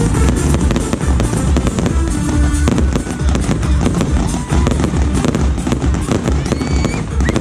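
Fireworks bursting and crackling in quick succession over loud music with a pulsing bass beat.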